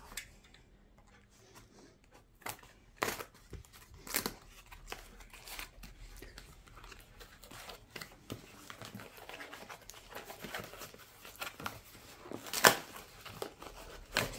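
Cardboard shipping box being opened by hand: packing tape and cardboard flaps ripping and crinkling in irregular rips, the loudest rip near the end.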